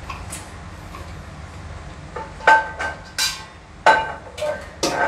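Metal cookware clanking: several sharp metal strikes from about halfway in, each with the same short ringing tone, as pans or utensils are knocked and handled.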